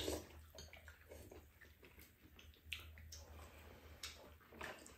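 Faint eating sounds: a few soft clicks of spoons against bowls, with sipping and chewing, over a low steady hum.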